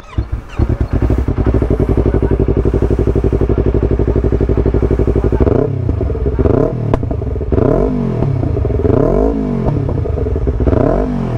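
Motorcycle fitted with a DX Generation A1R SE aftermarket exhaust starts and settles into a steady idle, then is revved in about five quick throttle blips, each rising and falling, with a sharp pop among them.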